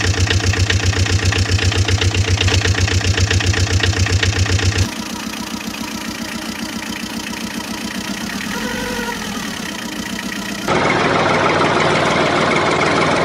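Tractor engine sounds in three sections with abrupt cuts between them: an engine idling with fast, heavy pulses for the first five seconds, then a quieter engine running, then a louder, rougher engine from about eleven seconds in.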